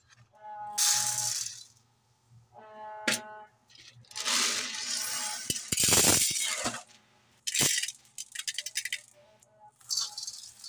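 Dry split chickpea lentils (chana dal) being poured from a cup onto a steel platter, the hard grains rattling and pattering onto the metal and onto each other. They come in several pours, with the longest in the middle.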